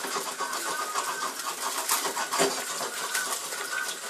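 Sausages frying in hot oil in a pan: a steady sizzle full of small crackles and pops as the fat spits.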